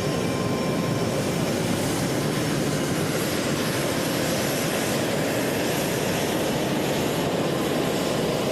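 Jet engine of a Boeing T-7A Red Hawk running steadily: a dense, even rush with faint whining tones that fade out about two seconds in.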